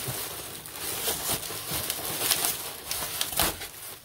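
Plastic packaging rustling and crinkling in short bursts as parts are handled in a cardboard box, with a dull knock about three and a half seconds in.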